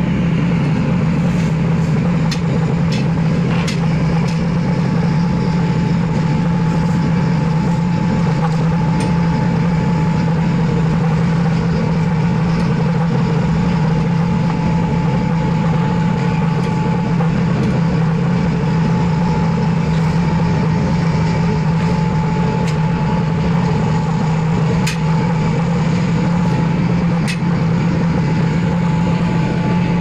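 Brass-melting crucible furnace running under forced air: a steady roar with a constant machine hum beneath it. A few faint sharp clicks sound now and then.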